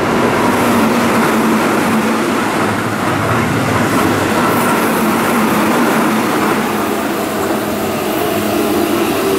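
Keihan electric commuter and limited-express trains running past at close range: a continuous loud rumble of wheels on rails with steady humming tones through it, and several tones sliding in pitch near the end.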